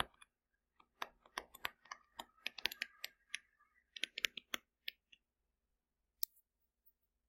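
Light clicks and taps of a stylus pen on a touchscreen as words are handwritten, coming thick and fast between about one and five seconds in, with a last click near the end.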